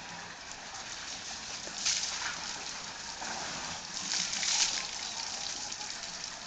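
Asian elephant spraying water from its trunk over its back, the water splattering down onto its body and the wet concrete: a short splash about two seconds in and a longer one about four seconds in.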